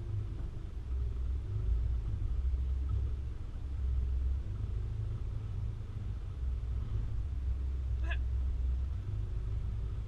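Steady low rumble of a vehicle driving, with a faint engine note underneath and a short sharp sound about eight seconds in.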